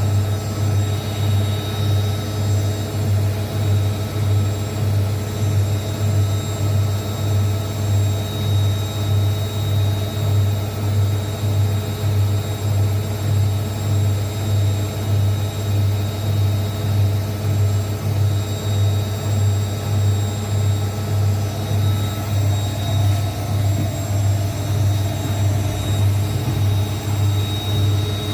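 Zanussi ZWSE680V front-loading washing machine spinning at steady speed in its final spin, with its shock absorbers newly repaired. A loud, even hum pulses in loudness about one and a half times a second, under a steady high motor whine.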